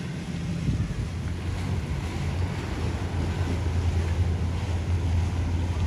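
Motorboat engine running with a steady low hum that grows stronger about halfway through, over water wash and wind on the microphone.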